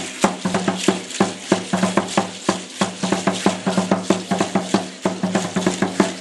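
Aztec dance drumming: an upright wooden huehuetl drum beaten in a fast, steady rhythm of about four sharp strokes a second.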